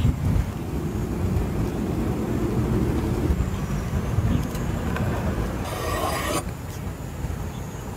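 A cleaver cutting through grilled meat on a wooden board, one cut lasting under a second about six seconds in, over a steady low rumble.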